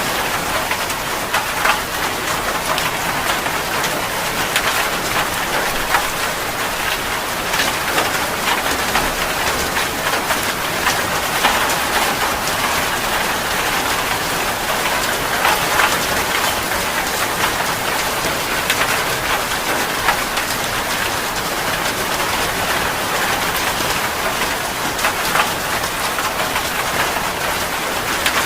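Heavy rain falling steadily: a dense, even hiss with many sharp individual drop hits throughout.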